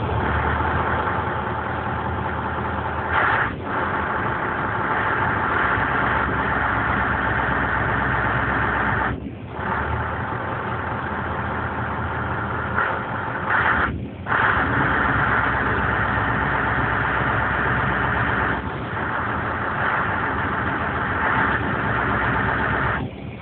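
Scania 164L's 15.6-litre V8 with an open exhaust running just after starting, heard from inside the cab. It swells louder several times and drops back sharply about 9 and 14 seconds in, as the throttle is opened and closed.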